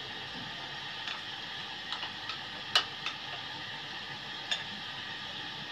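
Metal spoon clinking lightly against a glass bowl while stirring a thick yogurt salad: a handful of scattered clinks, the sharpest about halfway through, over a steady faint hiss.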